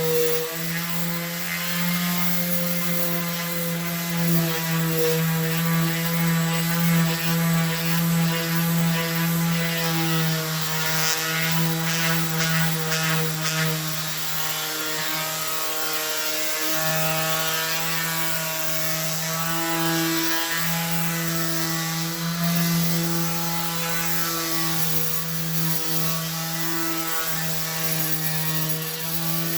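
Electric sander running steadily with 100-grit sandpaper on a jointer's cast iron bed, taking off rust, its motor hum swelling and dipping slightly as it is pushed across the surface.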